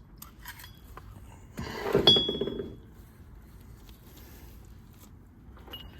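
Steel differential parts clinking as they are handled. About two seconds in comes a loud metallic clank with a short, high ring, and a lighter ringing clink follows near the end.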